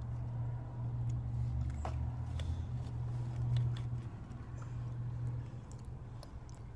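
A child biting into and chewing a taco, with scattered small crunching clicks, over a steady low hum.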